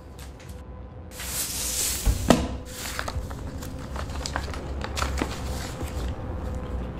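Paper money being handled on a wooden table. About a second in there is a brief rush of rustling that ends in a sharp knock, followed by light flicks and rustles as the bills are counted, over a low steady hum.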